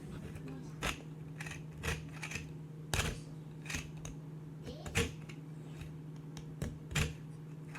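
Hard plastic clicking and clacking as interlocked 3D-printed PLA rings are turned by hand and knock against each other, irregular, about one or two clicks a second, over a steady low hum.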